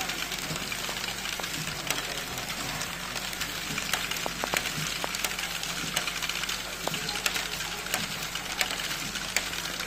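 LEGO Great Ball Contraption running: small plastic balls clicking and rattling through the modules at irregular moments, over a steady mechanical whir of the motors and a steady hiss.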